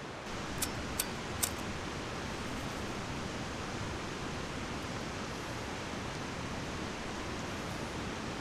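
Three quick, sharp clicks about half a second apart, then a steady rushing hiss of river water.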